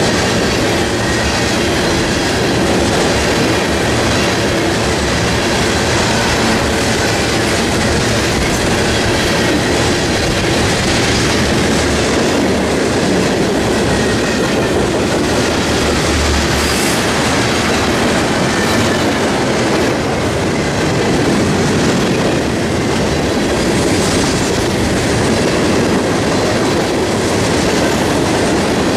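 Norfolk Southern freight train's tank cars and covered hoppers rolling past at speed: a loud, steady rumble of steel wheels on the rails.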